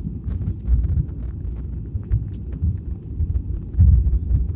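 Low rumble inside the cabin of an IndiGo Airbus A320-family airliner rolling on the ground, with uneven thumps, the loudest near the end, and scattered light clicks and rattles.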